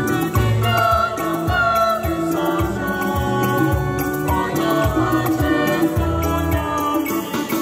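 A small group of young voices singing a gospel praise song together, accompanied by a Yamaha PSR-SX700 arranger keyboard playing chords and a bass line under a steady light percussion beat.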